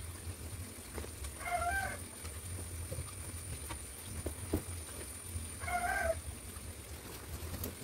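Two short animal calls, each about half a second and about four seconds apart, over a steady low hum, with faint taps and rustles of cloth being handled.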